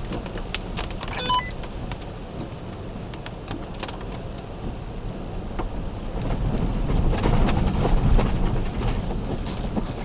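Jeep Grand Cherokee WK2 fording a deep creek, heard from inside the cabin: a low rumble of engine and tyres with water splashing against the body, swelling to its loudest about seven to eight seconds in.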